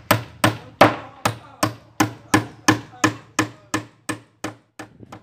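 Claw hammer driving nails into a wooden plank on a wooden boat's hull: a steady run of sharp hammer strikes, about three a second, growing fainter near the end.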